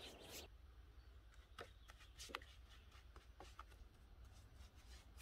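Near silence, broken by a few faint, scattered clicks and light scrapes of a paintbrush working paint onto a wooden garden table.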